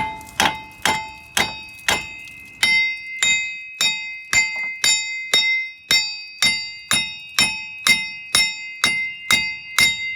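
Hammer blows on a seized wheel hub assembly of a 2005 Chevy Tahoe, about two strikes a second. Each strike rings with a clear metallic tone as the hub is knocked loose from its rusted mounting.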